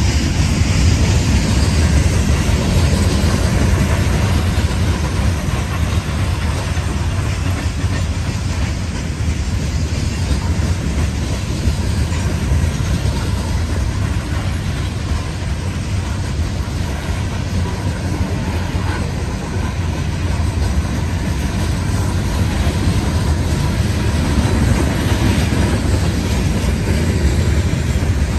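Coal hopper cars of a CSX freight train rolling past: steel wheels running on the rail with a steady, low-heavy rolling noise.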